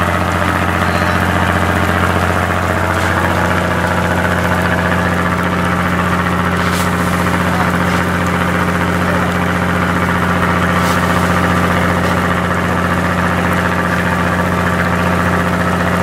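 A fishing boat's engine running steadily at an even pitch, with two faint clicks about seven and eleven seconds in.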